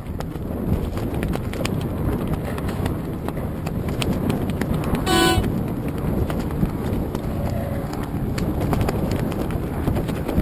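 Wind rumbling on the microphone and choppy water slapping and knocking against a moored floating hull, with irregular small knocks. About five seconds in, a horn gives one short toot.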